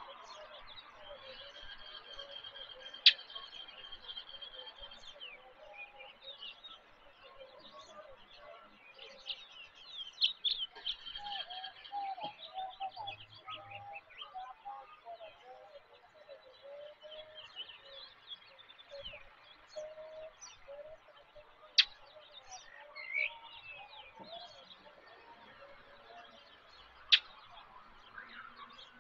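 Several birds chirping and trilling, with a long high trill in the first few seconds and a busy stretch of chirps around ten seconds in. Three sharp single clicks, the loudest sounds, come about three seconds in, past twenty seconds, and near the end.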